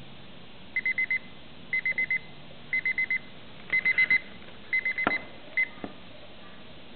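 Electronic beeping: groups of four quick, high, even beeps about once a second, five groups in all and then one lone beep, with a sharp click about five seconds in.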